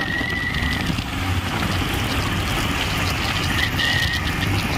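Motorcycle cruising at speed on an open road: steady engine rumble under wind rush on a helmet-mounted microphone, with a thin high whistle coming and going twice.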